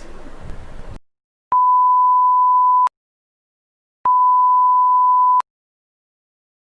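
Television static hiss that cuts off about a second in, followed by two identical steady electronic beep tones, each lasting over a second with a click as it starts and stops, separated by dead silence.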